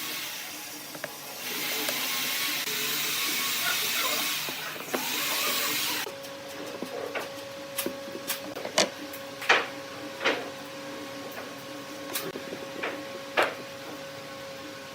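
Woodworking shop machinery: a loud steady hiss for about four seconds that cuts off suddenly, then a steady motor hum with a run of sharp knocks and clicks.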